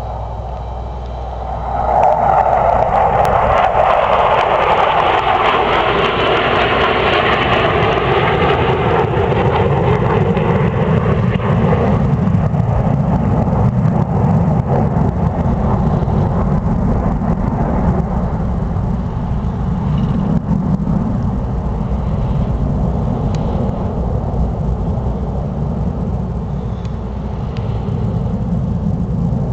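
Jet engine roar from four military jets flying over in formation. The roar swells suddenly about two seconds in, stays loud for about ten seconds, then fades to a deep steady rumble.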